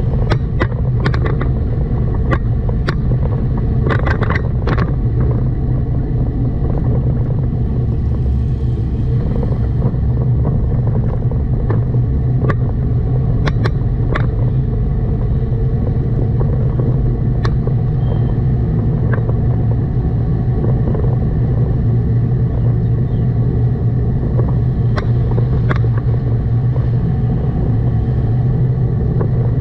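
A car driving on city roads, with a steady low engine and road rumble. Scattered sharp clicks or knocks cut in now and then.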